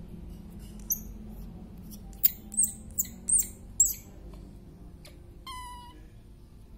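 Baby macaque calling: one short shrill squeak, then a quick run of five shrill squeaks, then a single longer coo a little past halfway.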